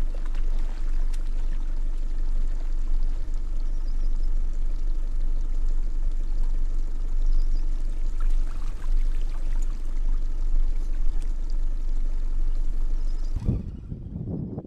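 Steady rushing wind noise on the microphone, with a strong low rumble underneath; it drops away abruptly near the end.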